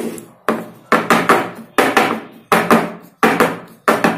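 A batter-filled aluminium cake mould tapped down on a tabletop: about a dozen sharp knocks, often in pairs, roughly three a second, each ringing briefly.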